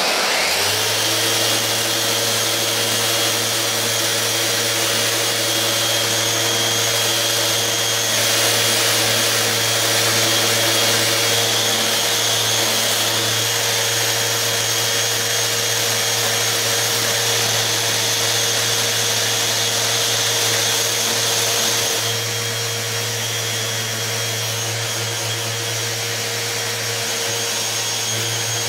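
Electric random orbital sander running steadily with a constant whine, its pad sanding paint off a carbon fibre sheet. The level drops slightly about two-thirds of the way through.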